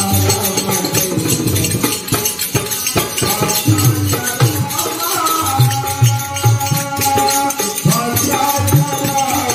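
Devotional bhajan music: a harmonium holding long notes over a steady beat on a two-headed dholak drum, with the constant clinking of small hand cymbals.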